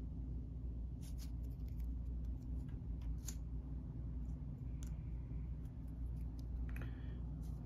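Light clicks and taps of thick cardboard game discs being handled, set down on a paper rulebook and picked up again, a few scattered clicks over a steady low hum.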